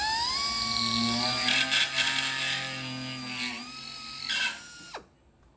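Pneumatic air drill spinning a countersink cutter in a depth-stop cage, cutting a screw-hole countersink into an aluminium wing spar flange. It gives a steady high whine with rough cutting chatter in the middle, then spins down with a quickly falling whine about five seconds in.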